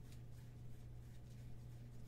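Faint flicks and rustles of a stack of trading cards being shuffled through by hand, over a steady low hum.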